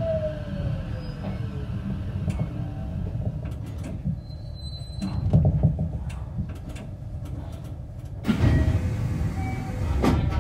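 JR West 225 series 5100 EMU motor car with a Toshiba IGBT VVVF inverter, heard from inside: the inverter whine falls steadily in pitch and dies away about two seconds in as the train brakes to a stop, leaving a low rumble. A few sharp clicks follow, and a sudden rush of noise comes in about eight seconds in.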